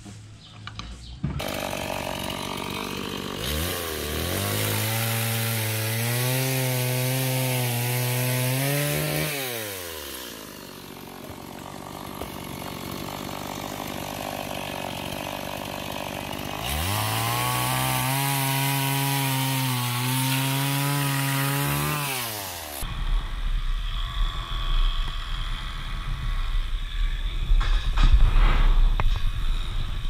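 STIHL two-stroke chainsaw cutting a log twice: each time the engine revs up, holds a steady pitch under load for about five seconds, then falls back as the chain comes free. In the last few seconds the sound changes to a low rumble with scattered knocks.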